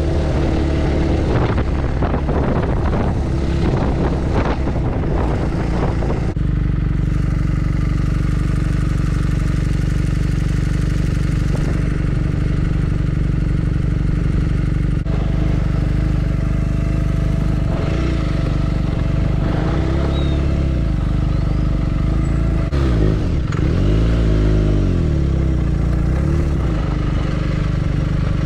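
BMW R1250GS boxer-twin motorcycle engine running under way, heard from the bike. For the first six seconds or so it is mixed with rough wind and road noise. After that the engine note is steadier, and near the end it dips and rises several times with the throttle.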